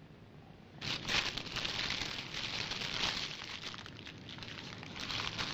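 Paper wrapper and napkin being handled and crumpled at a table, a busy crinkling rustle full of small crackles that starts about a second in.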